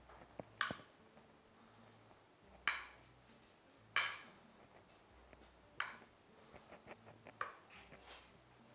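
Metal spoon pressing and scraping a crumbly oat topping in a glass baking dish, with scattered short clinks and scrapes, about five louder ones a second or two apart among fainter ticks.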